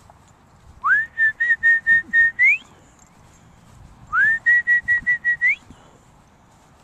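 A person whistling twice to call a dog back. Each whistle slides up, pulses quickly on one pitch, then rises at the end.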